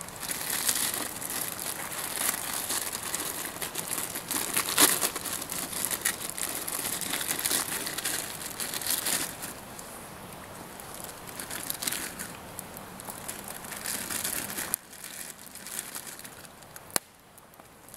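Plastic wrapper of an instant ramen noodle packet crinkling and tearing as it is handled and opened, dense and irregular for most of the time, then quieter, with a single sharp click near the end.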